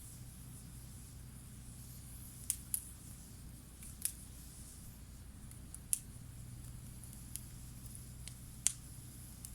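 Wood campfire crackling: about seven sharp, scattered pops from the burning wood, over a faint steady low hum.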